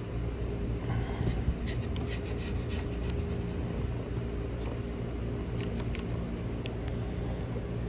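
Small parts being handled, with rubbing and light clicks, over a steady low hum.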